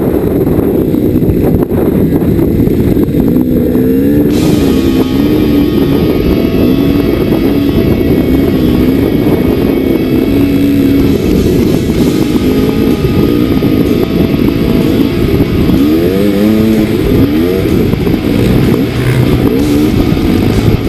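KTM dirt bike engine heard from on board, revving up and down as the rider works the throttle, under heavy wind buffeting on the camera microphone.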